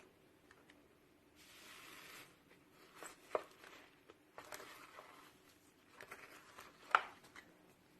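Slime being squeezed and stretched by hand: soft, crackly squishing with two sharp clicks, one about three seconds in and a louder one near the end.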